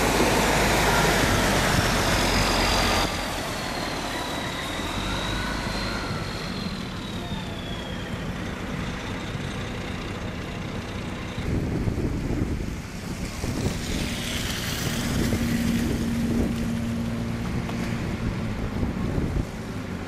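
Snowplow trucks and slow traffic on a snow-covered road: truck engines and road noise, with a loud rush for the first three seconds. A wavering whine rises and falls a few seconds in, and a steady low hum runs for a while in the second half.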